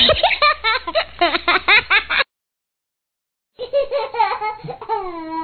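Two stock laughter sound-effect clips. The first is rapid giggling laughter, about six or seven bursts a second, that cuts off abruptly a little over two seconds in. After a second and a half of dead silence a second laughing clip starts and trails off in drawn-out falling notes.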